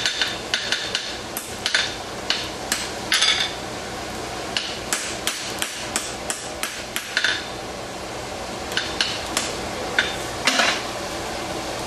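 Blacksmith's hammer striking red-hot steel on an anvil in irregular blows, each with a short metallic ring, with brief pauses between runs of strikes. The blows are flattening the offset jaw of a pair of tongs being forged.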